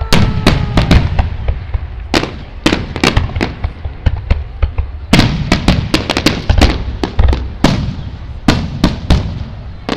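Aerial fireworks shells bursting in a rapid, irregular string of sharp bangs, some in quick clusters, over a low rumble of echoes.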